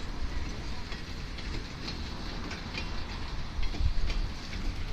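A Chichibu Railway train running over the rails: a steady low rumble with irregular wheel clicks, growing a little louder near the end.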